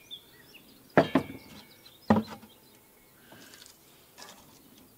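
Plastic buckets being set down and shifted on a wooden bench: three sharp knocks, two close together about a second in and one about two seconds in.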